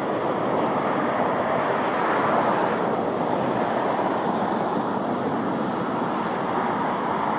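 Jet airliner engines running, heard as a steady rushing noise that swells a little about two seconds in.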